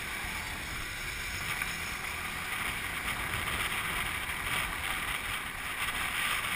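Steady wind noise on the microphone and road noise from a motorcycle riding through traffic.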